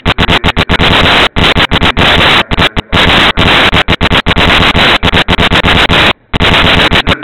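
Loud, harsh crackling distortion from a badly overloaded recording, cutting in and out abruptly, with a longer dropout about six seconds in.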